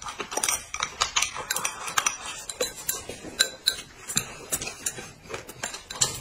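Chopsticks clicking and scraping against a plate and bowls as food is scooped up, in quick irregular clicks.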